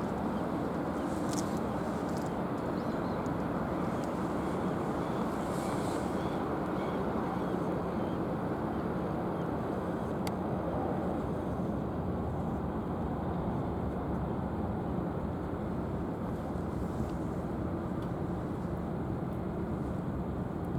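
Steady low rumbling noise of the helicopter destroyer JS Izumo's gas-turbine propulsion and exhaust running, with no change in level.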